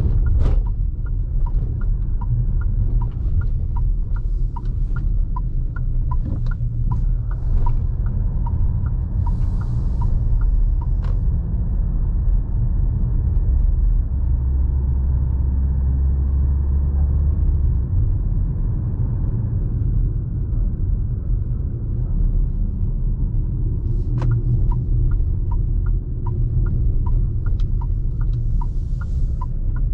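Fiat Toro Volcano's 2.0 diesel engine and road noise while driving: a low steady rumble that grows louder for a few seconds midway. A light ticking, about two a second, runs through the first several seconds and comes back near the end.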